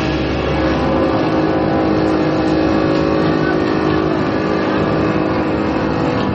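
A live band's instrumental passage: a loud, dense drone of steadily held tones.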